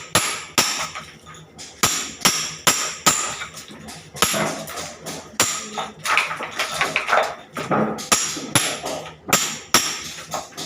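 A hammer striking repeatedly: more than a dozen sharp blows at an uneven pace, with a short ring after some of them.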